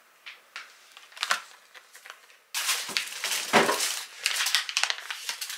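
A few light clicks and rustles, then from about two and a half seconds in, loud, continuous crinkling of plastic food packaging being handled.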